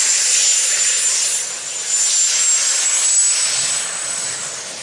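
Case IH super stock diesel pulling tractor at full power under load, its turbochargers giving a steady high whistle over a loud rushing exhaust. The sound fades away near the end as the pull finishes.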